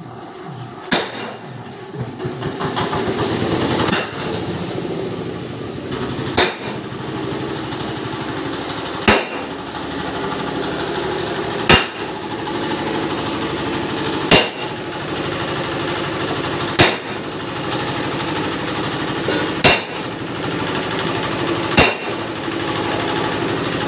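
Hammer blows on metal, about nine strikes spaced roughly two and a half seconds apart, over a steady engine-like drone that swells a few seconds in.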